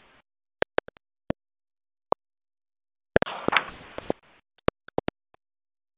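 Dead silence broken by a dozen or so sharp, isolated clicks, with about a second of faint hiss carrying more clicks a little past the middle.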